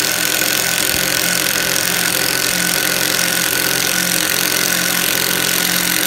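A small cordless Makita drill-driver motor running steadily under load as it bores or drives a screw into hardwood, with a steady whine.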